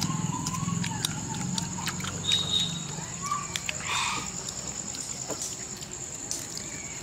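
Close eating sounds of whole grilled chicken torn and chewed by hand: wet chewing and smacking with scattered sharp clicks as the meat is pulled apart.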